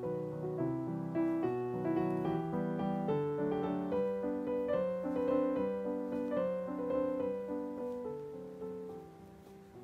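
Background piano music playing a melody with chords, fading out over the last couple of seconds.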